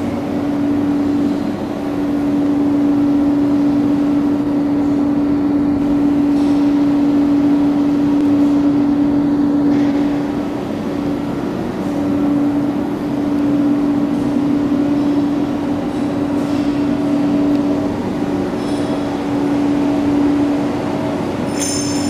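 Steady drone of factory machinery, with one strong humming tone held over a broad mechanical rumble that dips briefly about halfway through.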